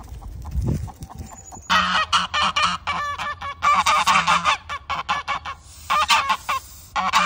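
A group of white domestic geese honking loudly in rapid, overlapping calls, starting about two seconds in, with short lulls near the end.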